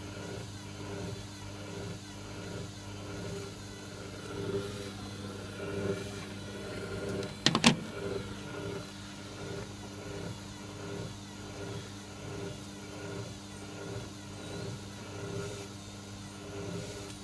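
Servis Sapphire 6055 washing machine running its drum mid-cycle: a steady motor hum with a swish that swells and fades about once a second as the drum turns. There is a sharp double knock about halfway through.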